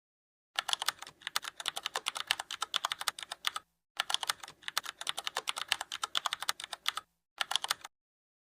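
Keyboard typing: rapid keystrokes in two runs of about three seconds each, then a short burst near the end.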